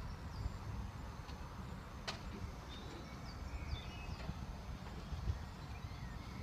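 Outdoor ambience: a low wind rumble with scattered short bird chirps, and one sharp click about two seconds in.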